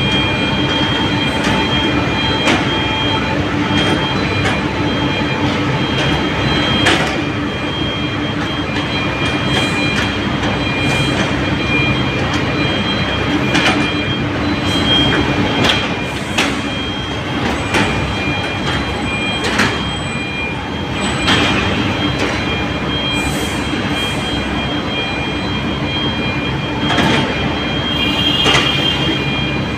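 Small crawler excavator's diesel engine running under load as it climbs a slope, with a steady high whine over it and irregular metallic clanks and squeaks from its steel tracks.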